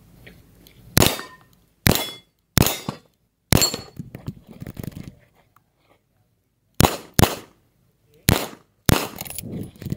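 Revolver fired in a course of fire, about eight shots in uneven groups: four roughly a second apart, a pause of about three seconds, then two quick pairs. Each shot has a short echo.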